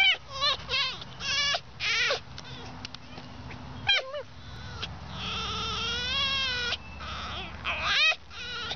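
Red fox giving a string of high-pitched, wavering calls that sound like a dolphin: several short ones in the first two seconds, a falling call about four seconds in, a long warbling call in the middle, and a few more near the end.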